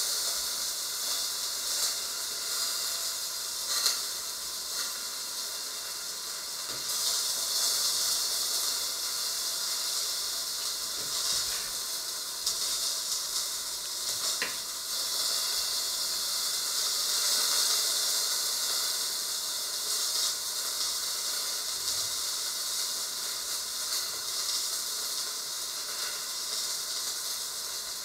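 Steady hiss of cooking on the stovetop, strongest in the treble and swelling and easing slowly, with a few faint clicks.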